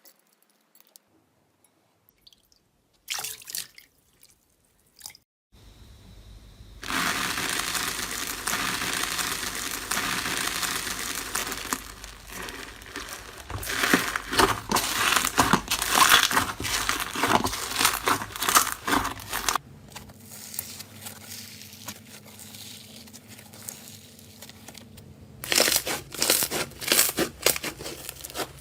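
Slime being squeezed and pressed by hand, crackling and popping with many sharp clicks. After a few isolated clicks there is a long loud crackly stretch, then an abrupt cut to a quieter passage, and loud crackling again near the end.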